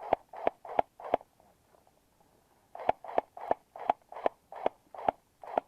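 G36-style airsoft rifle firing in semi-auto: four quick shots, a short pause, then a steady string of about eight more, close to three a second.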